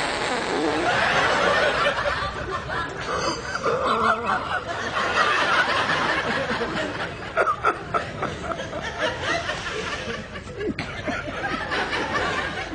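People snickering and chuckling, a run of stifled giggling laughter that goes on and off.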